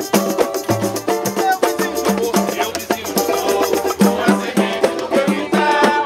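Live samba from a roda: several samba banjos strummed over pandeiro tambourines and a drum keeping a quick, steady beat, with voices singing along.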